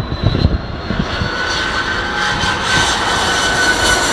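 Airbus A330-300 airliner's twin jet engines on final approach, growing louder as it passes low, with a steady high whine over the engine noise.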